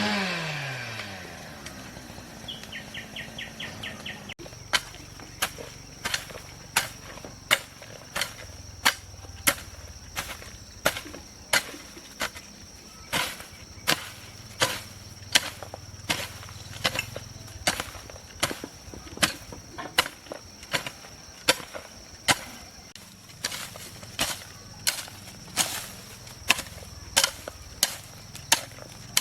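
A chainsaw's engine winds down and stops right at the start. Then a hand tool chops in steady strokes, about three every two seconds, over a steady high insect drone.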